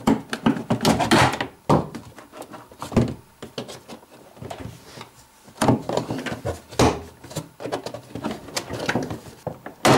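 Thin plastic cover panel inside a Samsung refrigerator's freezer compartment being worked loose and pulled out by hand: irregular plastic clicks, creaks and knocks as its clips give, with rustling between them.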